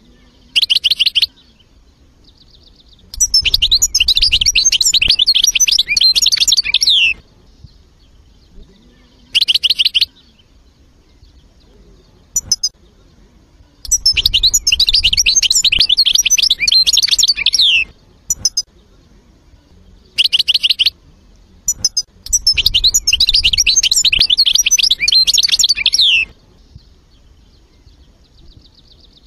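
European goldfinch singing: three long, rapid twittering song phrases of about four seconds each, with short bursts of high notes between them.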